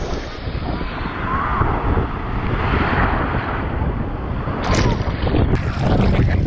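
Small beach waves washing around and over a camera held at the waterline: rushing, sloshing surf with a heavy rumble of water and wind buffeting on the microphone, swelling about three seconds in.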